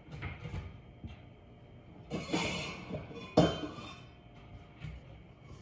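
Kitchenware being handled: light knocks, a rough scraping rustle about two seconds in, then one sharp glassy clink about three and a half seconds in.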